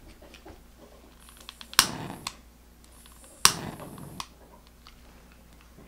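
A long-nosed butane utility lighter clicked twice, about a second and a half apart, each sharp click followed by a brief rush, as it is fired to light a candle.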